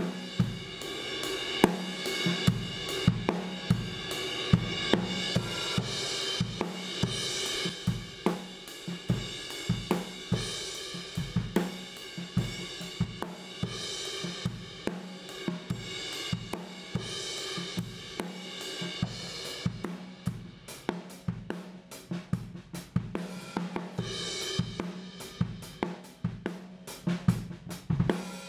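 Drum kit recording played back through an MXR Dyna Comp compressor pedal: kick, snare, hi-hats and cymbals in a steady groove. The hits come thicker and faster in the last third.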